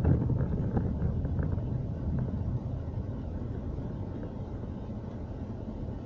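Steady low rumble of a car's engine and tyres on a wet road, heard from inside the cabin, gradually getting quieter.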